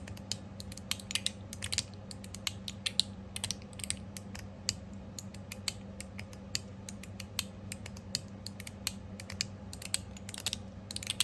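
Copper mechanical fidget slider worked back and forth by hand: irregular sharp metal clicks, several a second, as the slide plate snaps through its detents on a freshly lubed track.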